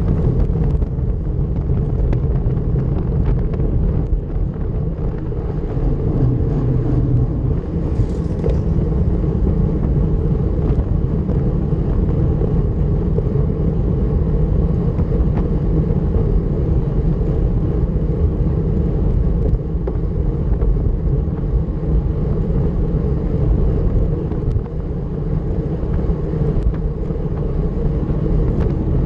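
Steady low rumble of wind and road noise from a road bike ridden at time-trial speed, buffeting the camera's microphone, with a brief hiss about eight seconds in.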